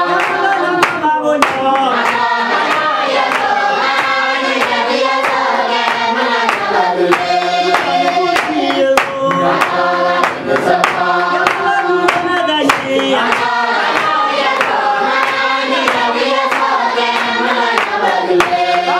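A group of men and women singing together, unaccompanied, while clapping their hands in time.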